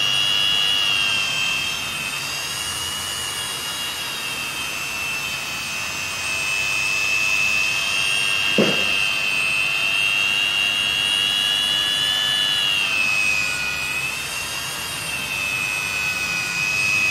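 Handheld electric polisher with a felt pad running on glass, buffing out scratches: a steady high-pitched motor whine that wavers in pitch about three-quarters of the way through. A short knock sounds about halfway through.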